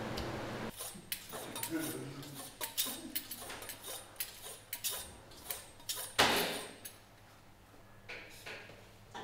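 Long doner knife honed on a sharpening steel: a quick run of metallic scraping strokes over several seconds, the loudest about six seconds in, then a few lighter strokes. A steady machine hum stops under a second in.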